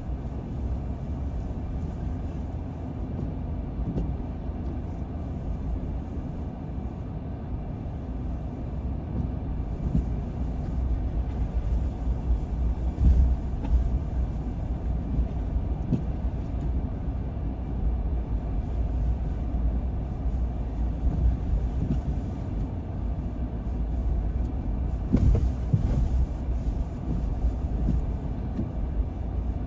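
Steady low rumble of a car driving, engine and road noise, with a couple of short louder knocks about halfway through and again near the end.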